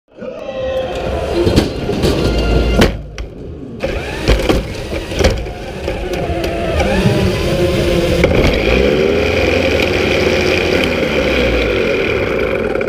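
A competition robot's electric drive motors and gearboxes whining up and down in pitch as it drives across the field, heard from on board. Several sharp knocks and clatters of the chassis hitting things come in the first half.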